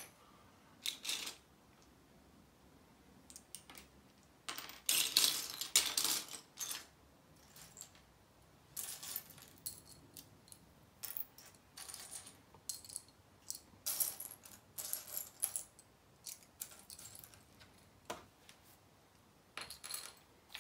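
Small plastic Lego pieces clattering and clicking as they are handled, in scattered bursts, busiest about five seconds in.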